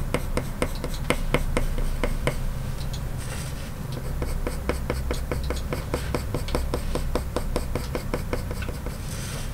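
Faber-Castell Polychromos coloured pencil flicking short fur strokes across paper: a quick run of light ticks, about four or five a second.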